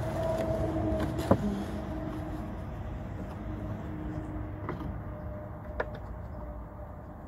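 Low rumble with a humming tone that slowly fades, and a few sharp clicks from hands working at a car's plastic undertray, the loudest about a second in.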